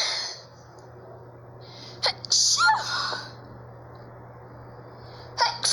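A person sneezing in a series: the tail end of one sneeze at the start, a full sneeze about two seconds in, and another beginning near the end.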